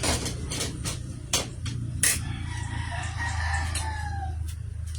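A rooster crowing once, a call of about two seconds that wavers and falls off at the end, over a steady low hum. Several sharp clicks sound in the first two seconds.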